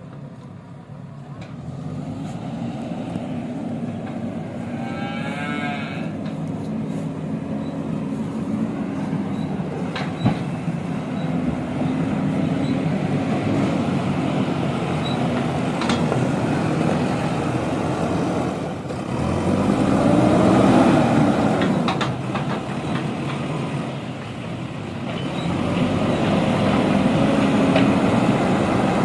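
JCB 3DX backhoe loader's diesel engine running under load as it works, with a few sharp knocks along the way. About twenty seconds in comes its loudest stretch, a pitch that rises and falls over a couple of seconds, and near the start a brief wavering high tone.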